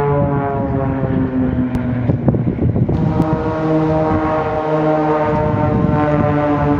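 Piston-engined propeller aerobatic aircraft, the Blades' Extra 300s, running in flight: a steady, loud drone of several pitched tones whose pitches shift a few times.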